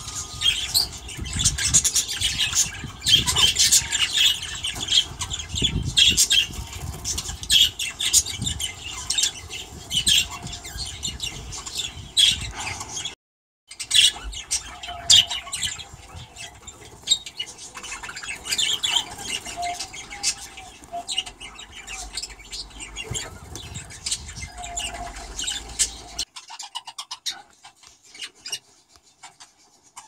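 A flock of budgerigars chattering with many quick chirps and squawks. The sound drops out for a moment a little before halfway and is quieter near the end.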